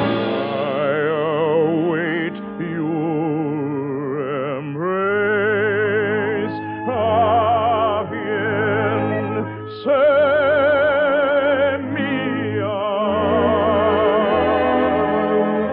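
A tenor sings a Neapolitan love song in operatic style over orchestral accompaniment, with long held notes and a wide vibrato. The sound is the narrow, dull tone of an early-1950s radio transcription.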